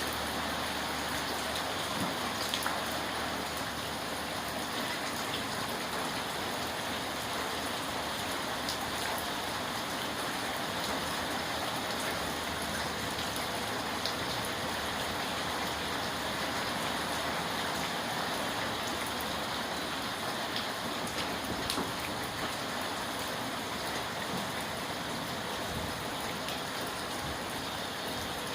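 Steady rain falling: a dense, even hiss with scattered taps of individual drops.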